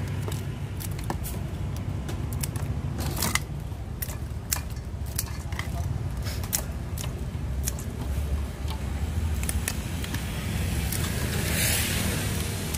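Kitchen scissors snipping through blue swimming crab shell: a scatter of short sharp clicks and snips, with a brief scrape near the end, over a steady low background rumble.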